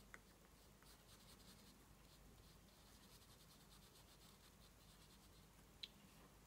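Near silence, with the faint soft brushing of a round watercolour brush stroking wet paint onto watercolour paper, and two small clicks, one just after the start and one near the end.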